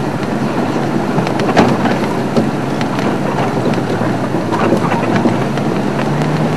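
Game-drive vehicle driving along a bush track: a steady engine drone with frequent rattles and knocks as it jolts over the rough ground.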